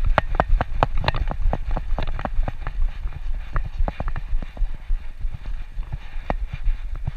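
A dog walking on pavement, picked up by a GoPro Hero 4 Black strapped to its back: a quick, uneven run of clicks and taps with its steps as the camera is jostled, over a steady low rumble.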